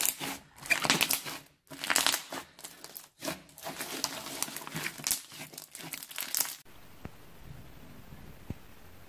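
Glossy slime mixed with small plastic beads being squeezed and stretched by hand, crackling in irregular bursts as air pockets are pressed out. It stops abruptly about two-thirds of the way through, leaving a faint steady hiss.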